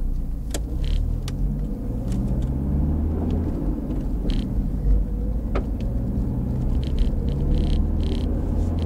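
Car engine and road rumble heard from inside the cabin while driving slowly, with scattered small clicks and rattles.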